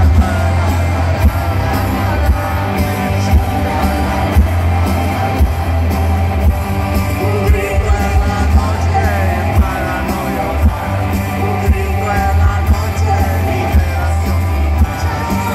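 Live pop-rock band playing loud with a woman singing lead over a steady drum beat and heavy bass, as heard from within the arena crowd.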